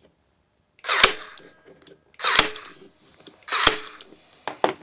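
Parkside cordless staple gun firing three times, about a second and a quarter apart, each a sharp snap as it drives a 1/4 inch staple into pine, followed by a few small clicks near the end.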